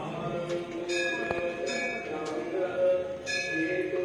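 A temple bell struck twice, about a second in and again about three seconds in, each stroke ringing on and fading, over a background of many people's voices.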